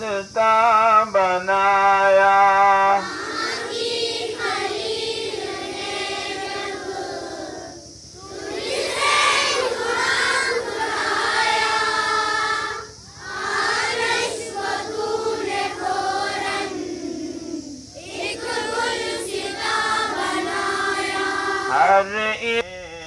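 Schoolchildren singing the morning assembly prayer together in unison, in sung lines of about five seconds with short breaks between them. A single held note opens it.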